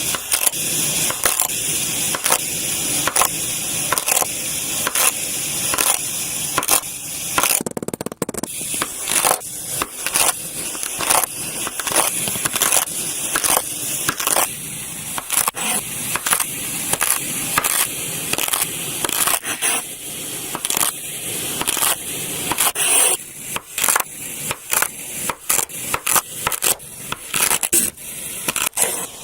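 Kinetic sand crunching and crumbling in a steady run of short strokes, roughly one to two a second.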